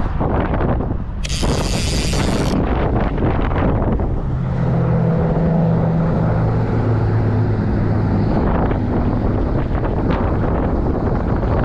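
Wind buffeting the microphone with a heavy low rumble, a brief sharp hiss about a second in, and a steady low engine hum in the middle.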